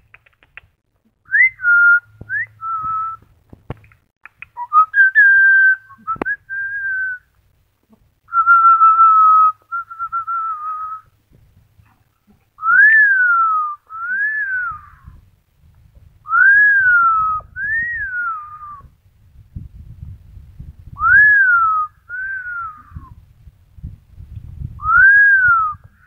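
Amazon parrot whistling: a few short and held whistled notes, then pairs of rising-and-falling whistles, one pair about every four seconds.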